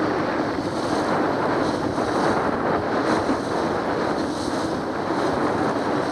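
Wind buffeting the microphone over the steady rush of water and waves along the hull of a small motorboat running through rough chop, with the boat's engine running underneath.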